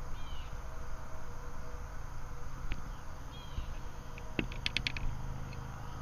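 Outdoor background: a steady low rumble with a few short high chirps, and a quick string of sharp clicks a little past the middle.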